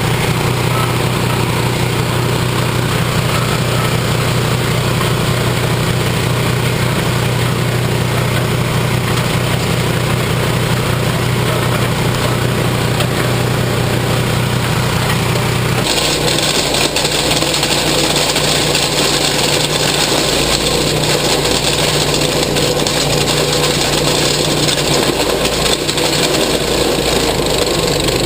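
Wood chipper shredder's 13 hp single-cylinder Lifan gasoline engine running steadily. About halfway through the sound changes abruptly: its steady low hum gives way to a brighter, noisier running sound.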